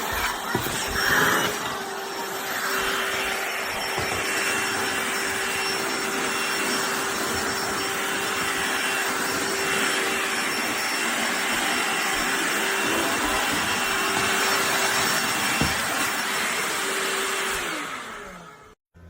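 DEWALT 20V cordless handheld vacuum running steadily at full suction, then switched off near the end, its motor pitch falling as it winds down before stopping.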